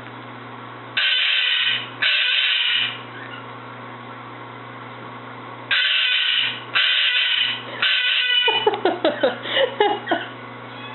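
Umbrella cockatoo screaming: two harsh, loud screams about a second long, then after a pause three more in quick succession, followed by a rapid string of short squawks, with a steady low electrical hum underneath.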